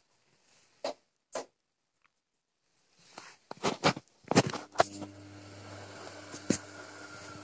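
Gorenje WA 50050 front-loading washing machine on its 95° cotton programme: the drum stands still with only two short clicks, then the wet laundry sloshes and thuds as the drum starts turning again. From about halfway through, the motor hum settles in steadily, with one more knock near the end.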